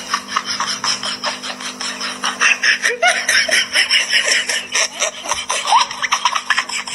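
A person laughing continuously in quick breathy pulses, over a steady low hum.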